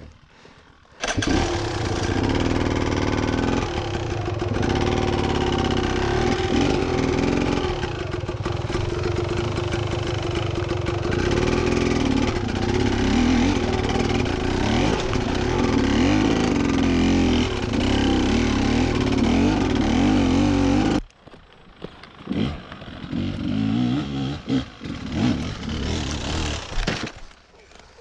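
Beta enduro motorcycle engine running under load, its revs rising and falling as it works up a rocky climb. It starts abruptly about a second in and cuts off sharply about three quarters of the way through, leaving fainter, uneven engine sound.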